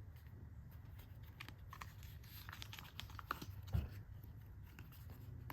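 Faint crinkling and tearing of plastic packaging as a pack of playing cards is opened and handled, with scattered light clicks and a soft thump about two-thirds of the way through.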